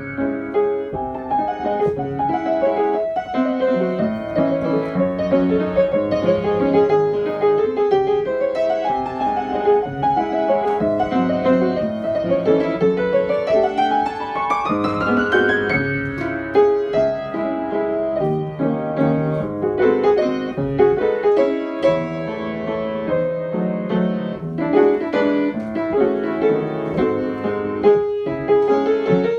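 Piano music: steady flowing notes, with a quick upward run of notes about halfway through.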